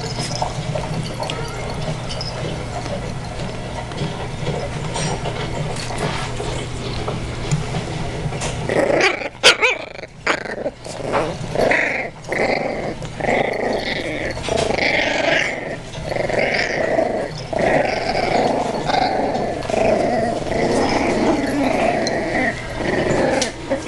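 Scottish Terrier puppies growling, at first low and steady, then from about nine seconds in a run of short, rough growls and yaps coming roughly once a second.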